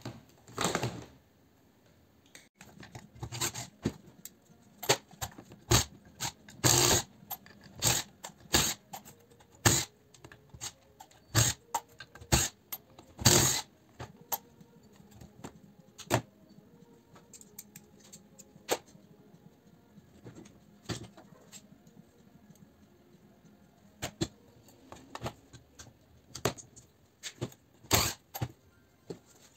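Small metal parts of an iron's soleplate clinking, knocking and scraping as they are handled and pried apart by hand on a workbench: irregular sharp clicks with quieter gaps between.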